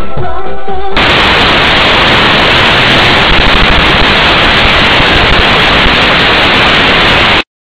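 Loud, steady static hiss with no pitch or rhythm. It takes over from music about a second in and cuts off suddenly near the end.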